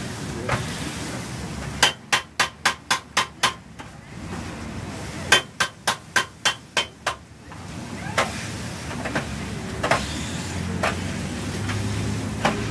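Metal spatula chopping meat on a flat-top griddle. It makes two quick runs of about seven sharp clanks each, about four a second, a couple of seconds in and again around the middle, then scattered single strikes, over a steady sizzle.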